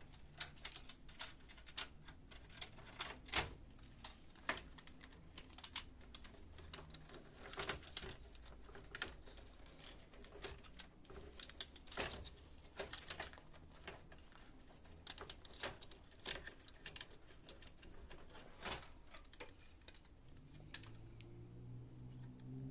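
Irregular small clicks and knocks from the printer's parts being handled as the fuser unit is worked free and lifted out of an HP LaserJet 1320, several a second at times, with pauses between.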